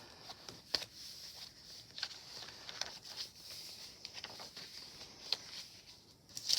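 Paper being handled: faint rustles and a few light taps as journal pages and cards are moved, over a steady faint hiss.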